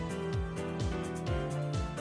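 Background music with a steady kick-drum beat, about three beats a second, under held notes.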